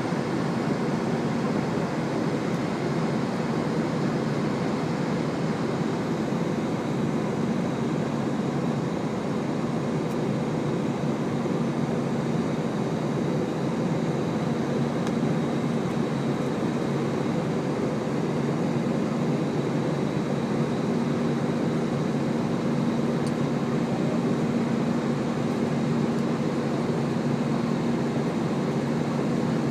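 Steady cabin noise of an easyJet airliner climbing after take-off: jet engines and rushing air making a constant loud roar with a low, even hum through it.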